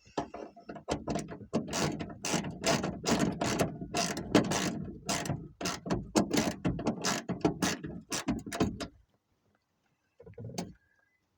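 Socket ratchet wrench clicking rapidly as a 10 mm bolt is run in on a car trunk latch. It stops about nine seconds in, before the bolt is fully tightened, and a short sound follows about a second later.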